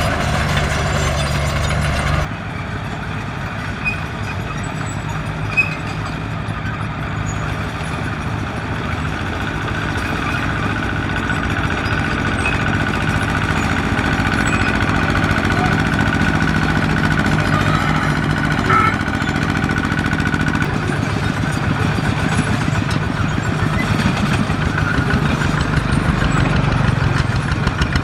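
Diesel engine of a heavy earthmoving machine running steadily under work. About two seconds in the sound drops suddenly, then grows gradually louder.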